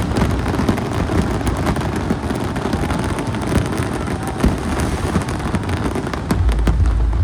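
Fireworks display: dense, continuous crackling and popping of bursting shells, with a deeper rumble of booms building up about six seconds in.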